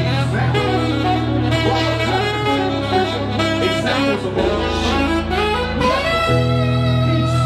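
Saxophone playing a live melody over backing music with long, held bass notes that change about every two seconds.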